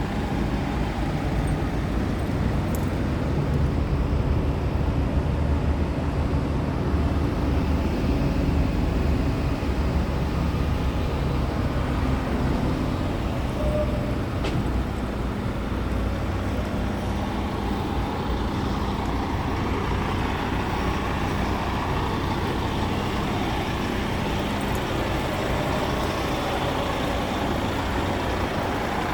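Scania P truck engine running steadily with an even low hum.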